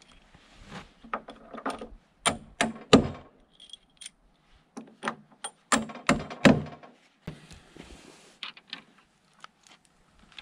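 Galvanized 3/8-inch carriage bolts clinking and knocking together in a hand: a run of sharp metallic clicks, loudest about three seconds in and again around six seconds in.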